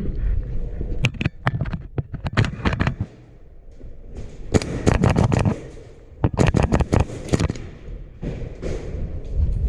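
Airsoft guns firing in three quick strings of sharp cracks, a second or two apart, the second and third strings the loudest.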